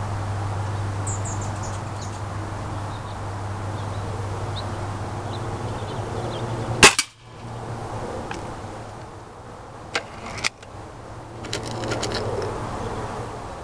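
Beeman RS2 .22 break-barrel spring-piston air rifle firing once, a single sharp crack about seven seconds in. Two smaller clicks follow a few seconds later, then a quick run of light clicks near the end.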